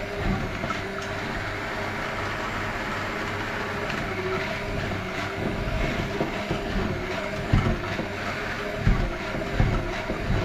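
Electric hand mixer running steadily, its beaters churning a thick, stiff flour dough in a bowl, with a few dull knocks in the second half.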